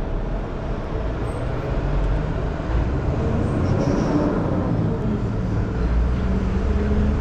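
Steady low outdoor rumble: background noise of traffic and air on the microphone, with no distinct event.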